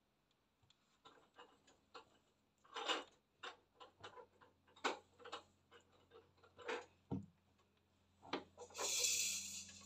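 Silicone spatula clicking and scraping against a glass mixing bowl as thick macaron batter is folded, in irregular light knocks. A longer, hissy scrape comes near the end.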